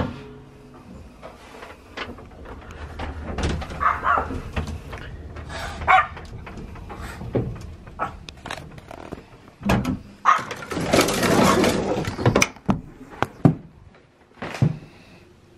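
Clattering and knocks from an old cage lift's folding metal scissor gate, with Pomeranians barking.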